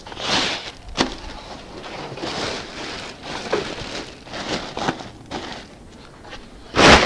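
Plastic wrapping rustling and crinkling as it is handled on an engine, with a sharp click about a second in and a loud rustle near the end.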